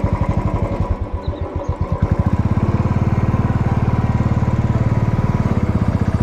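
Motorcycle engine running as the bike rolls along, with an even, rhythmic thump. About two seconds in it picks up to a faster, louder beat as the rider opens the throttle.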